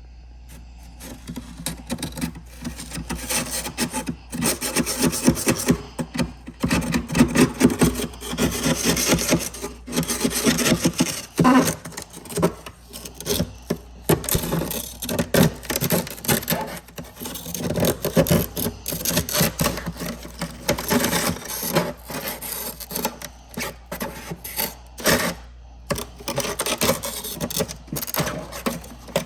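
Frost being scraped off the inside of a freezer: quick, repeated rasping strokes with a few short breaks.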